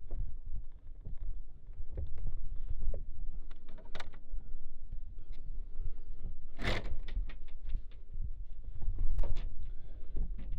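A string of irregular knocks, clicks and bumps of handling noise over a steady low rumble. The sharpest knock comes about two-thirds of the way through.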